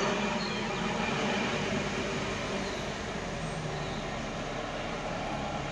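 Heavy Ashok Leyland lorry's diesel engine running steadily, a low even hum.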